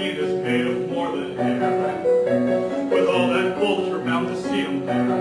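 Piano accompaniment to a musical-theatre song, playing a steady vamp of held chords over a repeating bass figure.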